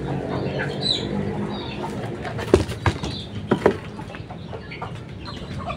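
A village chicken flapping its wings, with a few sharp, loud flaps about two and a half to four seconds in.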